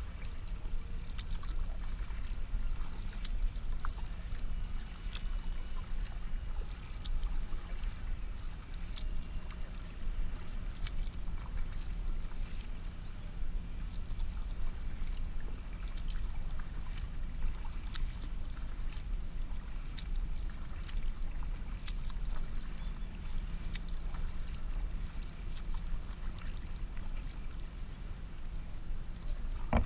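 Kayak being paddled on calm water: a steady low rumble, with light splashes from the paddle blades about every one to two seconds as the strokes alternate.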